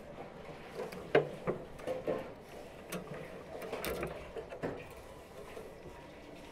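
Metal skewers and the frame of a wheel-shaped drum rotisserie barbecue clinking and knocking as a flattened chicken is fixed onto a skewer by hand: a run of irregular clicks, the sharpest about a second in.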